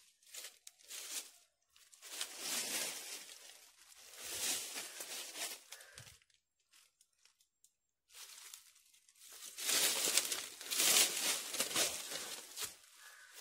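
Rustling and crackling of dry leaves and cocoa-tree foliage in several bursts, about two and four seconds in and again through most of the second half, with a short low thud around the middle.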